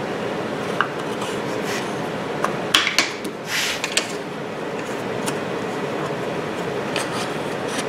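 Walnut game-box pieces being set and pressed into an MDF holding fixture by hand: a few wooden clicks and knocks, most of them in a cluster about three seconds in, over a steady background noise of shop machinery.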